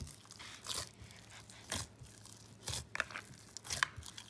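A hand kneading stiff, oiled puri dough in a plastic bowl: short, separate sounds of the dough being pressed and pulled, about one a second.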